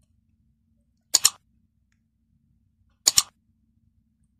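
Mouse-click sound effect, a quick double click heard twice, about two seconds apart, accompanying an animated Like/Subscribe button overlay.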